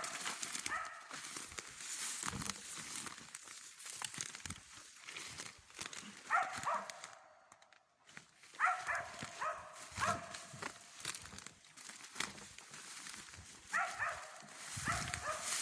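A laika hunting dog barking at a tree in short series of barks, the way it marks a hen capercaillie it has found there. Twigs and forest litter crackle between the barks.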